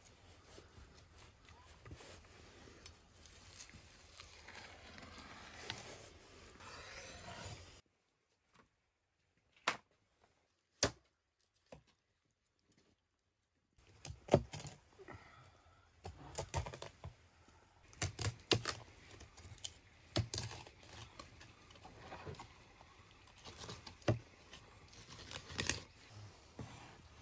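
A knife cutting and scraping through a large raw grass carp on a wooden cutting board. After a near-silent gap of several seconds, a heavy cleaver chops through the fish's backbone and ribs, giving a run of sharp, irregular knocks on the board.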